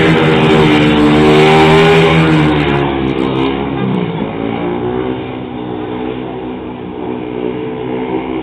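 Speedway motorcycles racing on a shale track, their 500cc single-cylinder engines running loud with the pitch rising and falling as a bike slides through the bend. After about two and a half seconds the sound fades as the bikes move away, and the engine note carries on more quietly.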